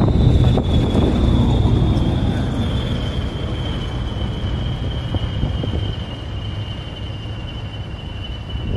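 English Electric diesel locomotive pulling away with its turbocharger whistling, a steady high whistle that slides slowly lower in pitch over a low engine rumble, fading as the train draws off.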